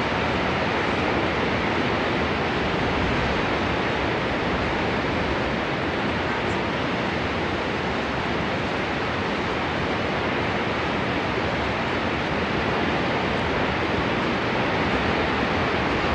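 Niagara Falls: a huge waterfall's steady roar of falling water, an even rush with no change in level.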